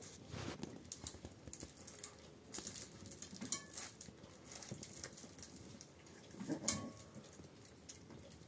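32-day-old Shiba Inu puppies scuffling and playing on fleece blankets: soft pattering and rustling with scattered small clicks, and two short squeaks, about three and a half and nearly seven seconds in.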